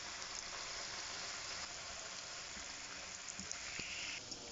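Cabbage pakora batter deep-frying in hot oil: a steady sizzle as fresh handfuls of batter are dropped into the pan. The hiss swells briefly near the end, then drops back.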